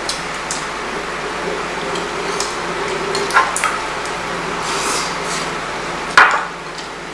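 Scattered light clicks of chopsticks and dishes at a meal, over a steady low hum, with one sharp clack about six seconds in.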